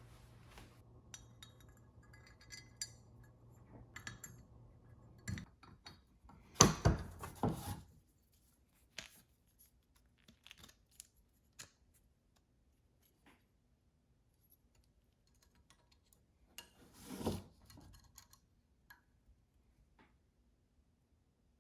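Small hard parts and tools being handled on a workbench: scattered clicks and clinks, with a louder clatter about seven seconds in and another near seventeen seconds.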